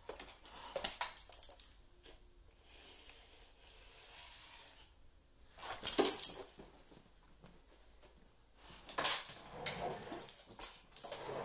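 A Vizsla dog moving about on a hardwood floor as it hunts a hopping bug, its claws clicking and scuffling in short bursts: about a second in, again around six seconds, and over a couple of seconds near the end.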